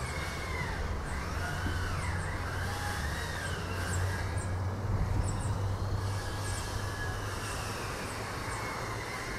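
Wind rumbling on the microphone and rustling the coconut palms. Short high bird chirps and sliding calls sound in the background.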